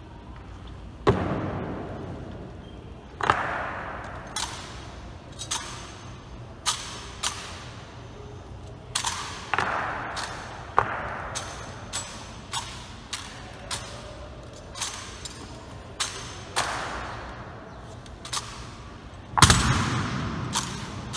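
Honour guards' rifle drill: a series of sharp clacks and thuds from rifles being slapped, handled and grounded and boots stamping, spaced irregularly, each ringing with a long echo off the hard walls of a large hall. The loudest impact comes near the end.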